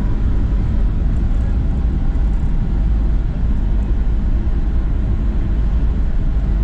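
Steady low rumble inside the cabin of a Boeing 737-800 rolling on the ground after landing: its CFM56 engines and the wheels on the runway.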